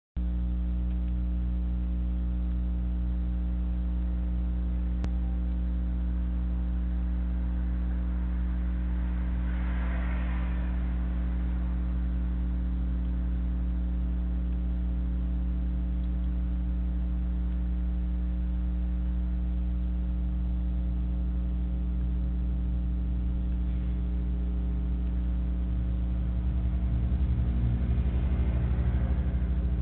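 Steady electrical hum with a stack of fixed tones, as picked up by a security camera's microphone. Two brief hissy swells come through it, one about a third of the way in and one near the end, where the hum also grows a little louder.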